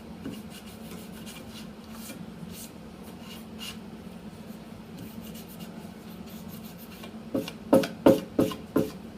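Rubber cleaning block rubbing dried pattern glue off a scroll-sawn wooden piece, faint scratchy strokes, then five loud knocks in quick succession near the end.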